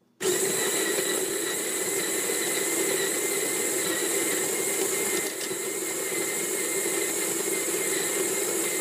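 Electric coffee grinder grinding espresso beans, switching on suddenly just after the start and running loud and steady with a high whine over the grinding noise.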